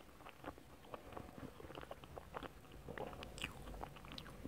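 Close-miked chewing of a mouthful of chocolate cake with ice cream: faint, irregular mouth clicks.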